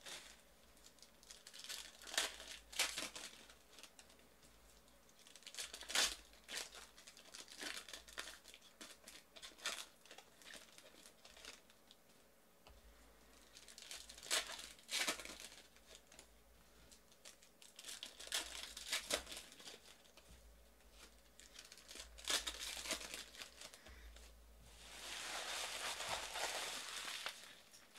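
Foil wrappers of trading-card packs crinkling and tearing as they are ripped open by hand, in short bursts every few seconds. Near the end there is a steadier rustle lasting a few seconds.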